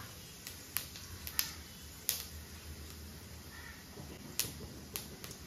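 Cumin and fennel seeds crackling in hot sesame oil in an aluminium kadai: scattered sharp pops at irregular intervals, with a lull in the middle.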